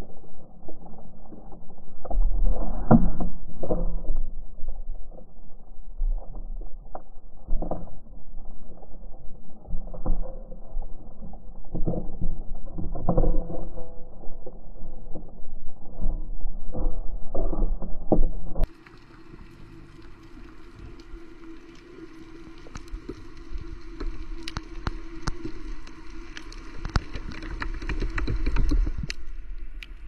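Muffled underwater sound picked up through a camera housing during a spearfishing dive: irregular thumps and knocks. About two-thirds of the way in it changes abruptly to a quieter hiss with a steady hum and scattered sharp clicks.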